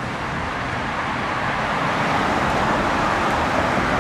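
Steady road traffic noise: a continuous rush of passing cars and tyres with no distinct single event.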